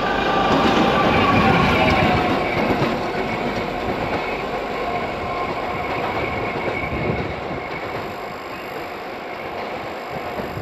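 ChME3 shunting diesel locomotive running light on the rails, its diesel engine and wheels loudest as it passes close about a second or two in, then fading steadily as it moves away.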